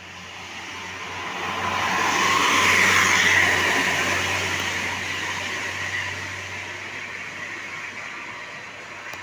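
A road vehicle passing by. Its tyre and engine noise swells to a peak about three seconds in, then slowly fades away.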